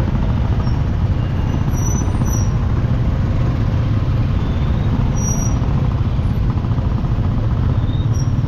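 Steady, loud low rumbling noise with no break.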